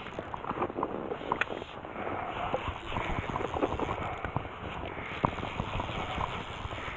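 Irregular light clicks and knocks over a steady rustling hiss: handling noise from a fly rod and reel while a hooked bass is played on the line.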